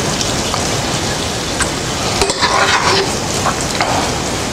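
Oil and oyster sauce sizzling steadily in a ceramic-coated frying pan, with a few light clinks of a metal spoon as salmon pieces are lifted out.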